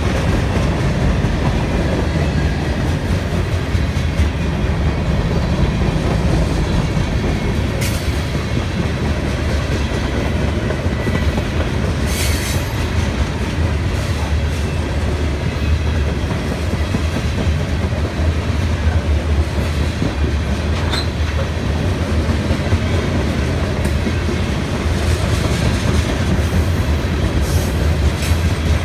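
CSX freight train's tank cars and covered hoppers rolling past close by: a steady rumble of steel wheels on rail with clickety-clack over the rail joints. A few brief high wheel squeals come through, at about 8 and 12 seconds in and again around 21.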